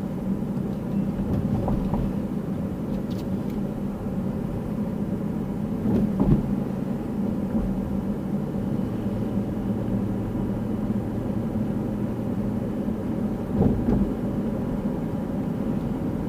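Steady road and engine noise heard inside a moving car's cabin, a low hum with a couple of brief knocks, about six seconds in and near the end.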